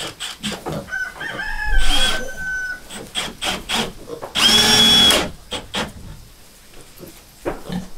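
Power drill driving screws into a wooden board in short bursts, while a rooster crows and chickens cluck close by.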